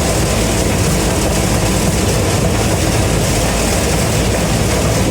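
Gleaner M3 combine running steadily while picking corn: a continuous, even engine and machinery drone.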